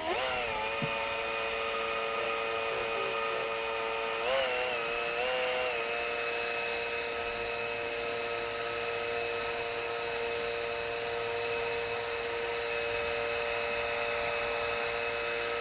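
A small motor running with a steady whine, its pitch wavering briefly about four seconds in.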